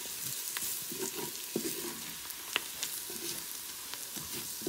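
Sliced onions and ground spices sizzling gently in a stainless steel pot on low heat while a wooden spatula stirs and scrapes through them, with a few sharp clicks of the spatula against the pot. This is the masala being fried to cook off its raw smell.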